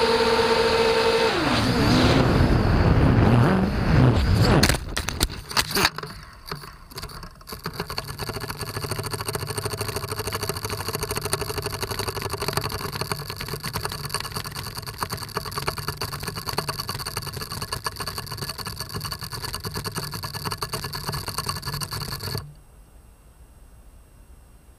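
Racing quadcopter's brushless motors whining, their pitch sweeping up and down with the throttle, then a few sharp knocks. The motors then run on steadily at low throttle and cut off suddenly near the end.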